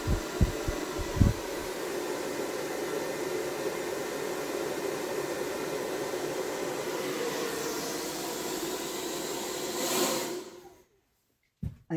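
Hair dryer running on its low setting: a steady whoosh of air with a faint hum and a few low thumps in the first second or two. It swells briefly about ten seconds in, then is switched off.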